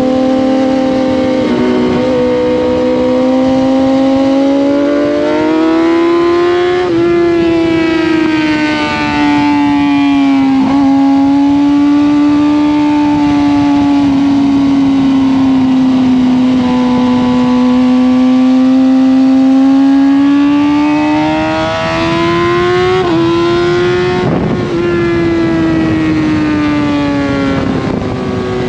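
Kawasaki ZX-10R inline-four sport bike engine at high revs on track, its pitch climbing and falling through the corners. Several quick breaks in pitch come from gear changes.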